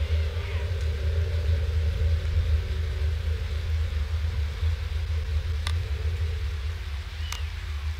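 Rain on an outdoor nest webcam's microphone: a steady low rumble and hiss, with two sharp ticks of drops striking it in the second half.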